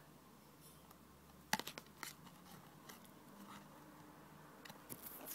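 Faint handling noise of a trading card being moved about: a few soft clicks and rustles, with a quick cluster of clicks about a second and a half in, over a low room hiss.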